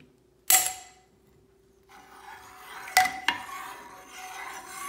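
A spoon stirring chopped potatoes into thick cream of chicken soup in a crock-pot insert, scraping along the pot with two sharp knocks against it about three seconds in. A single sharp clack comes about half a second in.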